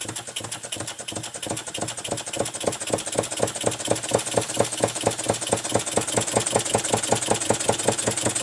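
Model horizontal steam engine running with a rapid, regular beat that grows louder and more even a couple of seconds in. Its crosshead guides are set a little too tight, which changes the engine's tone.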